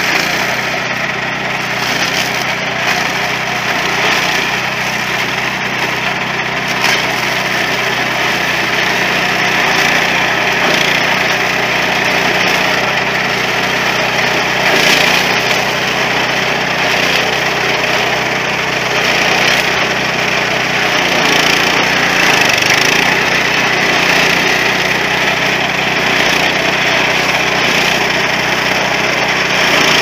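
The small engine of a walk-behind mini corn combine harvester running steadily while the machine picks ears from standing corn, with a continuous crackle of breaking stalks and husks.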